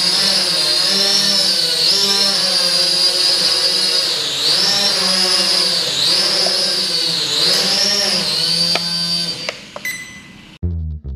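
JJRC H68 quadcopter's motors and propellers whining in flight, the pitch rising and falling as the throttle changes. The whine dies away about nine and a half seconds in, and guitar music starts at the very end.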